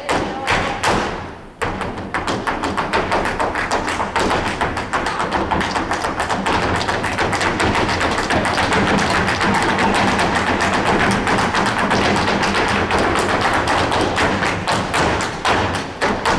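Rapid rhythmic hand clapping by a group of performers, with knocks of feet on the stage floor, keeping time for a dance over music. The clapping thins briefly about a second and a half in, then runs on densely.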